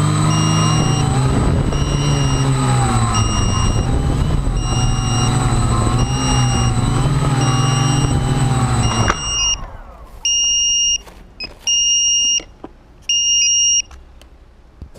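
Electric motors of an RC multirotor running steadily with slight pitch wobble, under a short electronic beep repeating about every 0.7 s. About nine seconds in the motors cut off suddenly, and three longer separate beeps follow.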